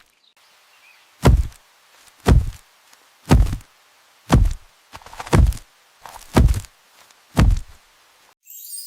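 Seven heavy, deep thuds, evenly spaced about one a second, like slow stomping steps; a rising whoosh starts just before the end.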